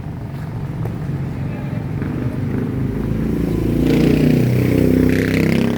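A motorcycle engine passing close by on the street. It grows louder about three seconds in, peaks, and starts to fade near the end.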